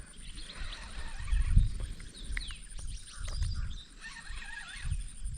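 Birds calling, with short falling chirps and whistles throughout. Low rumbles on the microphone come about a second and a half in, again near three and a half seconds and near the end; the first is the loudest.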